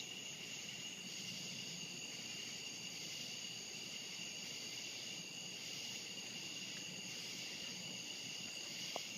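Steady chorus of crickets or similar insects trilling, several unbroken high-pitched tones layered over a soft background hiss.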